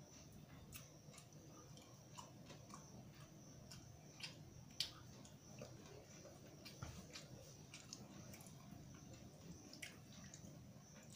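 Faint, scattered small clicks and soft squishes of fingers mixing rice and dal on a steel plate, with quiet chewing; the sharpest click comes about five seconds in.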